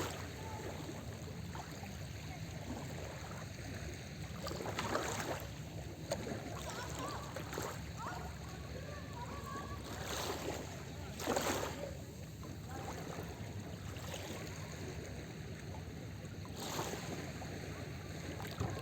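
Small sea waves breaking and washing up the beach four times, each wash lasting under a second, over a steady low rumble of surf.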